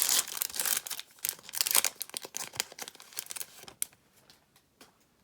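Foil Yu-Gi-Oh booster pack wrapper crinkling and being torn open in quick rustling bursts, stopping about four seconds in, followed by a few faint clicks.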